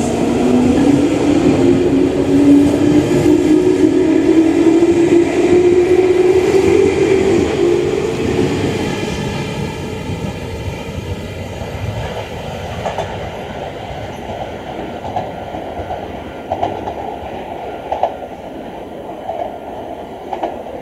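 Meitetsu electric train accelerating away from the platform, its traction motors whining steadily higher in pitch. After a cut, a quieter train runs over the rails with scattered clicks of wheels on rail joints.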